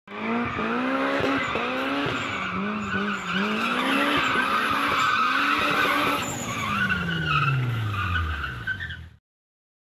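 Car engine revving up and down repeatedly with tyres squealing, then a long falling note as the revs drop near the end before the sound cuts off abruptly.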